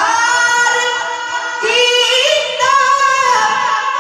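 A man's high voice singing an Urdu naat unaccompanied into a microphone, holding long notes and sliding up into a new phrase about one and a half seconds in.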